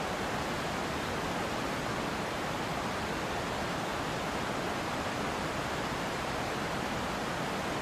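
Steady roar of a waterfall, an even rushing hiss without breaks.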